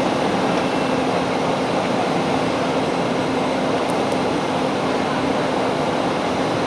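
Steady, even outdoor din with a faint low hum and an indistinct murmur of voices.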